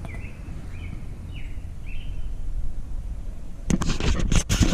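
Outdoor background with a bird chirping a few short downward notes in the first two seconds over a steady low rumble. Near the end come loud, sudden rustling and knocking noises.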